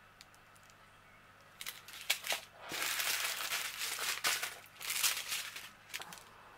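Strips of small plastic bags of diamond painting drills crinkling in irregular bursts as they are handled, starting about a second and a half in.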